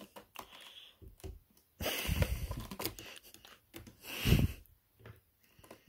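Kitten's claws scrabbling and rasping on a sisal-rope scratching post, with light scattered clicks, a longer rasping stretch about two seconds in and a dull thump a little after four seconds.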